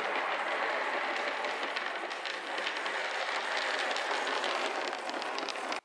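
O scale model tram running along the track close by: a steady rolling and motor noise of its wheels on the rails, with many quick clicks as the wheels pass over rail joints and points. The sound cuts off suddenly near the end.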